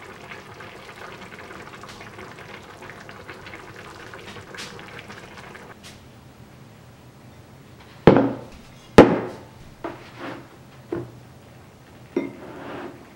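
Soft tofu stew bubbling in a stone pot over a gas burner. About eight seconds in, a run of hard knocks and clunks follows, the loudest around nine seconds, as a ceramic bowl and the hot stone pot are set down on a table.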